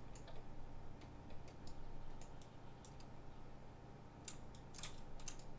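Scattered clicks of a computer mouse and keyboard, two of them sharper about four and five seconds in, over a faint steady hum.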